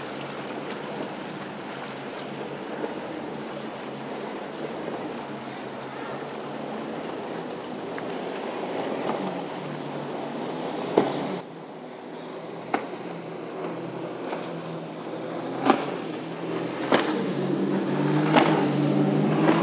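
Boat engines running amid the wash of waves and surf, the engine drone growing louder near the end. Several sharp knocks stand out over the wash.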